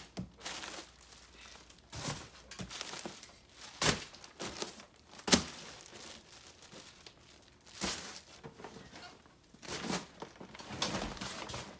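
Plastic packaging crinkling and rustling in irregular bursts as wrapped packs are handled, with two sharp, louder crackles about four and five seconds in.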